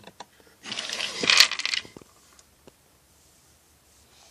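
Small plastic Lego pieces clattering and rattling against each other for about a second, as they are rummaged through by hand, then a few single clicks.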